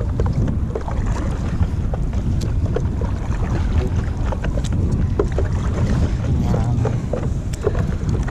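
Wind buffeting the microphone in a steady low rumble, with small scattered splashes and drips of water as a paddle board is paddled across open water.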